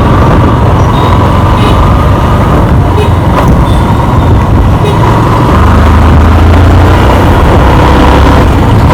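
Riding a motorcycle through traffic: wind rushes over the microphone over a low engine drone, which drops lower about five and a half seconds in.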